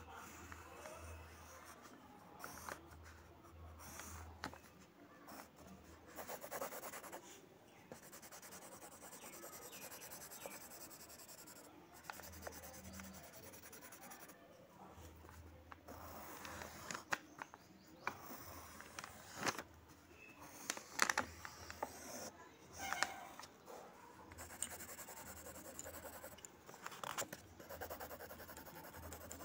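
Pencil scratching on paper in short, irregular strokes as lines are drawn, faint, with a low hum coming and going underneath.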